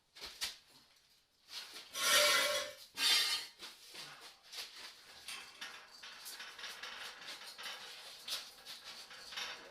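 Steel clanking and rattling as a camper frame is handled and shifted onto a four-wheel dolly, with two louder scraping clatters about two and three seconds in, then irregular light metal clicks and rattles.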